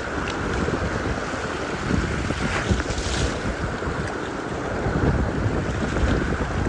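Fast, swollen river water rushing, with wind buffeting the microphone in uneven low gusts.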